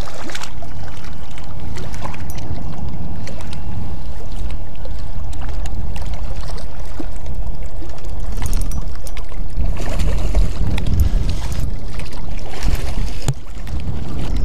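Wind buffeting the camera microphone with a loud, steady low rumble, with scattered clicks over it. Near the end a hooked fish splashes at the surface as it is brought in to the shore.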